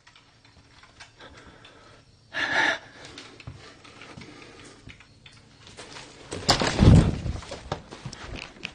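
A wooden interior door being handled and pushed open, with knocking and scuffing noise. There is a short sharp sound about two and a half seconds in, and a louder jumble of low thumps and rustling from about six and a half seconds.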